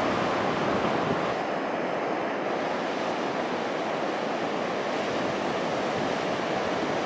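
Ocean surf breaking and washing ashore in a steady, even rush of noise.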